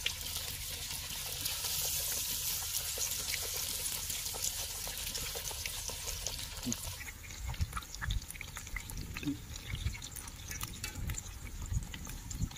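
Marinated chicken lollipops deep-frying in hot oil: a steady, dense sizzle that eases off about seven seconds in, followed by scattered low knocks and clicks.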